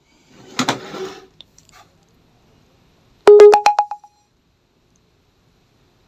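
A short electronic beep about three seconds in, lasting under a second, stepping from a lower tone up to a higher one, from the alarm setup being tested. A brief faint rustle comes just before it.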